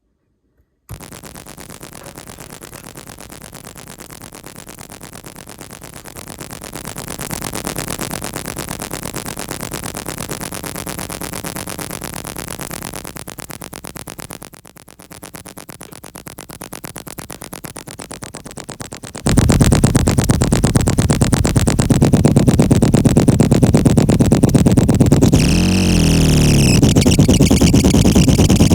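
Circuit-bent, self-oscillating glitch pedal, clones of the EQD Life and DOD Carcosa pedals wired in a feedback loop, putting out chaotic buzzing noise with a fast, even stutter. It grows louder around seven seconds in, drops briefly near the middle, then jumps much louder about nineteen seconds in, with a swooping pitch around twenty-six seconds.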